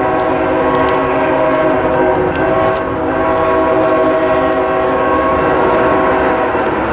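Air horn of an approaching Norfolk Southern freight train, led by a GE ET44AC locomotive, blowing a loud, steady chord for a crossing, with a brief break about two and a half seconds in. A hiss joins near the end.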